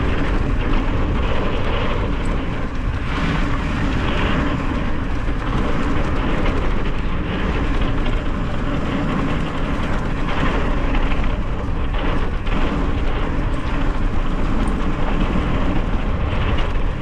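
Steady wind rumble on the camera microphone with the crunching hiss of mountain bike tyres rolling fast over a dirt trail.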